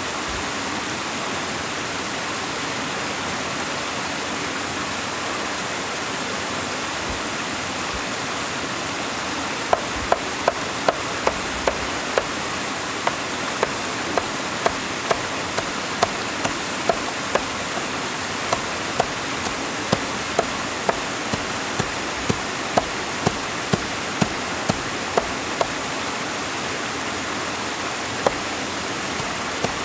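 Steady rushing noise, with a run of sharp knocks, about two a second, starting about ten seconds in and going on steadily.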